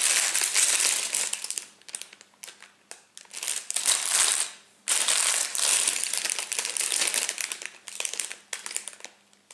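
Plastic bags of Lego pieces crinkling and rustling as they are handled and shaken. The sound comes in several bursts with short pauses between them.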